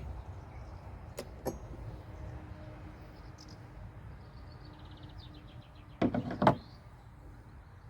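Two sharp clicks, then a short clatter of loud knocks about six seconds in, over a steady low rumble of distant traffic.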